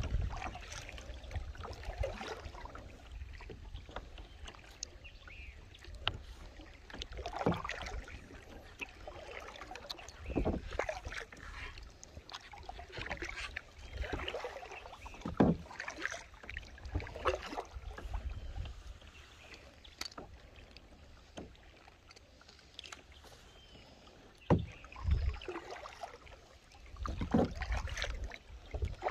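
Kayak being paddled on a lake: paddle blades dipping and splashing in the water at an uneven pace, with occasional sharper knocks and drips.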